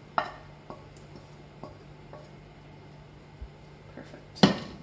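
Wooden spoon knocking against a frying pan held over a cooking pot: a few light clacks, then one loud sharp clack near the end.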